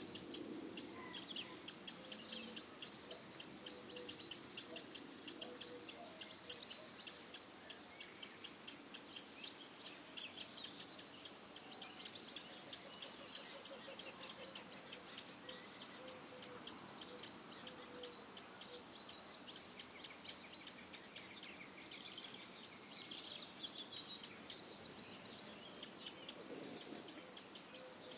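Birdsong: a small bird chirping on and on, short high chirps at about three a second, with fainter calls from other birds behind it.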